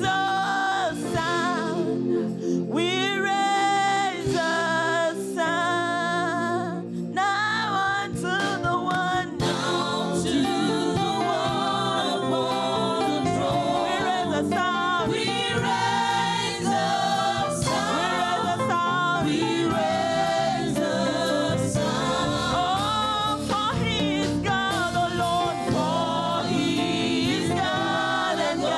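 Church choir singing a gospel praise song with musical accompaniment; the sound grows fuller about nine seconds in.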